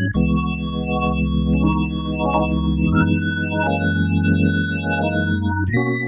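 Kurzweil K2700 workstation keyboard playing an organ patch: held chords over a low bass note, changing chord about three seconds in and again near the end.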